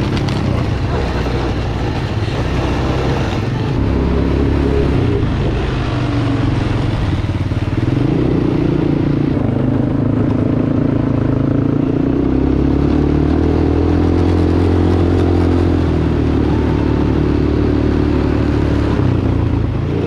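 ATV (four-wheeler) engine running while being ridden along a dirt trail, its engine note stepping up and down several times as the throttle changes.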